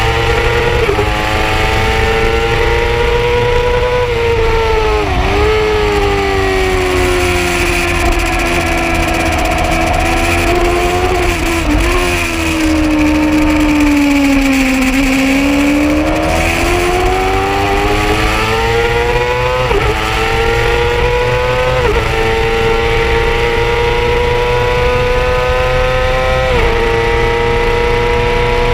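Yamaha R6 sportbike's inline-four engine running hard at high revs. Its pitch climbs and drops quickly at several upshifts, and around the middle it falls slowly and climbs again.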